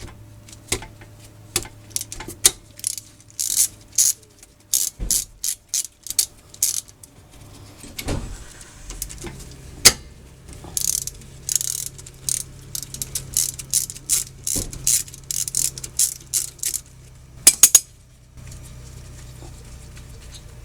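Ratchet wrench clicking in repeated bursts as the two 12 mm rear brake caliper bolts are loosened and backed out, with two sharp metallic clicks near the end.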